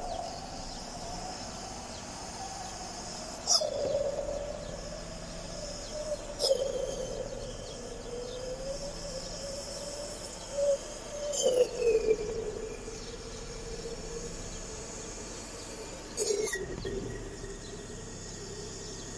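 Toyota Avalon's 3.5-litre V6 running under a steady high whistle as its intake vacuum draws catalytic system cleaner up a long hose from the can. The engine is blipped with the accelerator four times, each a sudden loud rise that settles back. It is heard from inside the cabin.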